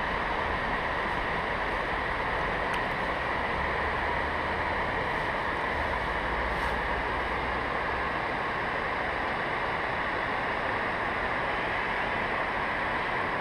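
Steady rush of river water pouring over a weir, an even hiss with no breaks.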